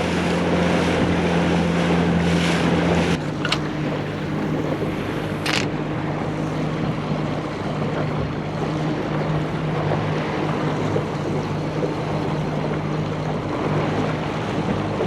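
Small boat's outboard motor running steadily in gear, with wind and water noise over it. The engine note shifts lower about three seconds in, and two short sharp clicks come soon after.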